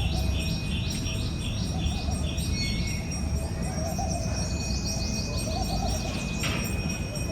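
Songbird chirping, one note repeated about twice a second for the first few seconds, then a higher twittering. A steady low rushing sound runs underneath.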